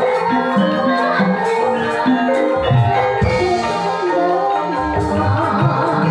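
Javanese gamelan accompanying a jaipong dance: bronze metallophones ring out a stepping melody over low drum strokes.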